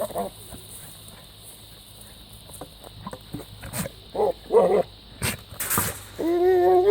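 A goat making odd short calls, then a longer, louder held bleat near the end, with a couple of sharp knocks in between.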